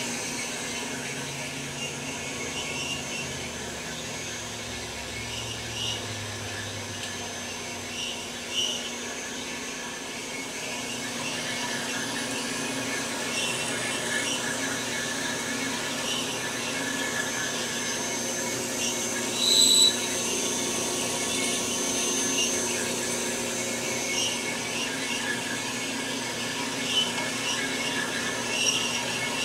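Bandsaw with a carbide-tipped MK Morse blade cutting steadily through heavy-wall steel mechanical tubing: a continuous running sound with a high, a little bit squeaky ring from the blade. There are small squeaks throughout and one sharper, louder squeal about twenty seconds in.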